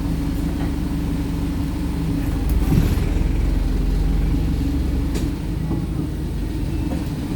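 Wright StreetLite single-deck bus's diesel engine running steadily, heard from inside the bus, with a short burst of hiss about two and a half seconds in.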